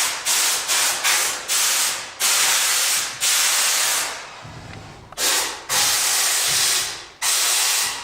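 Paint being sprayed in a series of short hissing bursts, each starting abruptly and tailing off, with a pause of about a second partway through.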